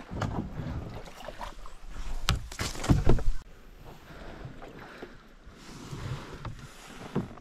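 A canoe being paddled through a shallow creek choked with beaver-dam branches: paddle strokes splashing, with knocks and thuds of paddle and hull against wood, loudest about two to three seconds in. After that it is a quieter wash of water.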